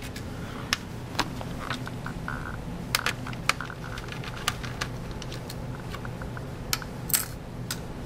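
Scattered small clicks and taps of hands handling a laptop's disassembled parts and motherboard, over a steady low hum.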